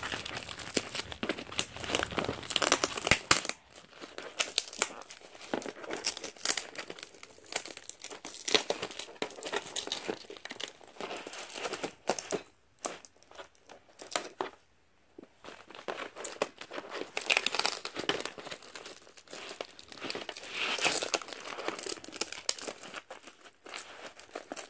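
Plastic packaging being crinkled and torn off by hand in irregular bursts, with a quieter stretch about halfway through.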